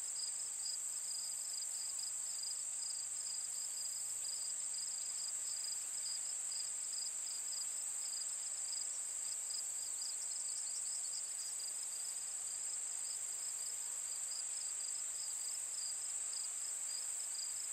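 Steady high-pitched insect chirping: one continuous high trill with a quicker pulsing chirp just below it, unchanging throughout.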